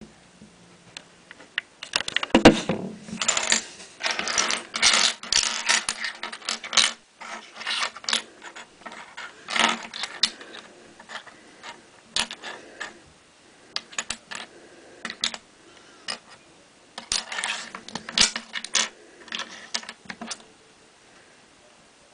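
Plastic Lego bricks being handled: several bursts of clattering and clicking, with quieter single clicks between them.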